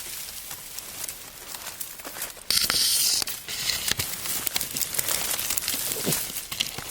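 Rustling and crackling of dry leaf litter and twigs as wild boars root and move about, with many small crackles and a louder burst of rustling about two and a half seconds in that lasts under a second.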